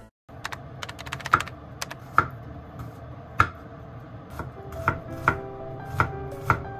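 Kitchen knife chopping garlic and dried chili on a bamboo cutting board: sharp knocks of the blade on the wood, a quick run of taps near the start, then separate strokes about one or two a second. Faint background music with held notes comes in during the second half.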